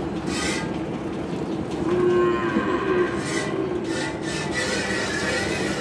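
A cow moos once, a long drawn-out call beginning about two seconds in, while a cow is milked by hand into a steel can, with brief hissing squirts of milk.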